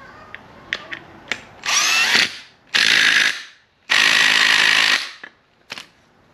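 Cordless drill run in three short bursts against an engine belt pulley, the first spinning up in pitch and the last about a second long. A few light clicks of handling come before the bursts and one after.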